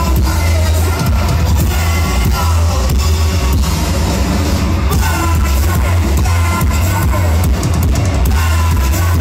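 A rock band playing live: electric guitars and a drum kit with a singer's voice, loud and steady with heavy bass.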